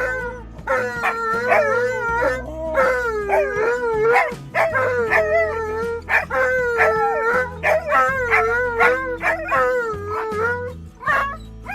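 A northern-breed dog (husky or malamute) howling and 'talking' in a string of wavering, yodel-like phrases with short breaks between them; it stops near the end.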